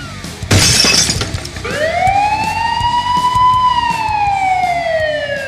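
A short crash-like burst about half a second in, then a wailing siren that rises slowly, holds, and glides down over several seconds.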